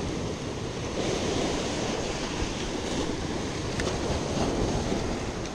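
Sea surf breaking and washing over the rocks below, with wind buffeting the microphone.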